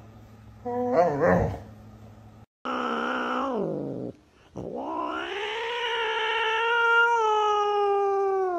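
Tabby cat yowling in anger: a short falling yowl, then, after a brief pause, a long drawn-out yowl held at a steady pitch for about four seconds.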